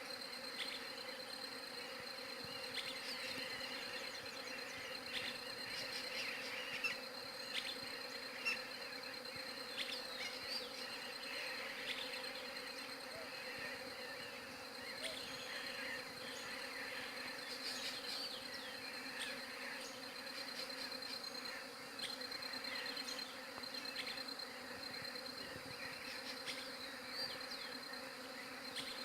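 A mass of bees humming steadily, with a continuous low buzz. Short high chirps and a few sharp clicks sound over it.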